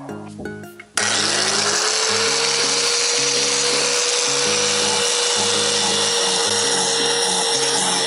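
A power tool's motor starts about a second in, its whine rising quickly to one steady high pitch, and runs on with a loud hiss. Background music plays underneath.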